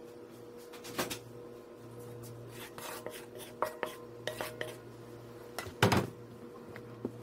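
Clinks and knocks of utensils against a large stainless steel mixing bowl as a container is tipped into it and a spatula starts stirring flour. The loudest knock comes about six seconds in, over a steady low hum.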